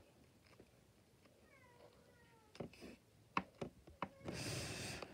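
A faint animal call, one falling cry about a second and a half in, then a few light clicks and a brief rustling hiss near the end.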